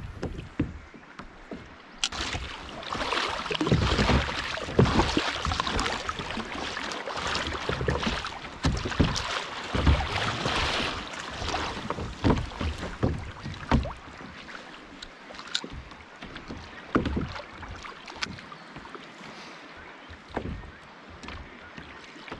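Sea water lapping and splashing against a plastic sit-on-top kayak's hull, with scattered knocks. The wash is louder in the first half and quieter later on.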